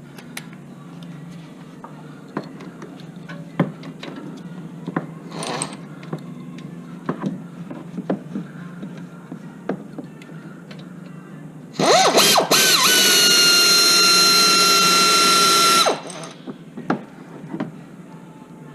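Light clicks and clanks of hand tools and brake parts. Then, about twelve seconds in, a power tool spins a socket, its whine rising and then holding steady for about four seconds before stopping, as it backs out a rear brake caliper bolt.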